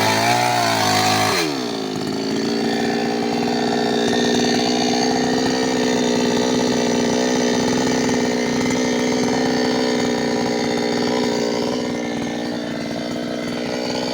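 New West 598X two-stroke chainsaw running at high revs, its pitch wavering, then about a second and a half in dropping to a lower, steady engine speed and running on.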